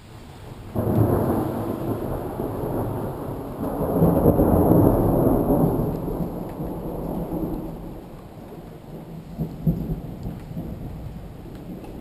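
Thunder from a nearby lightning strike. A sudden loud clap comes about a second in, then a louder rumble builds a few seconds later and rolls away slowly. Another short crack sounds near the end.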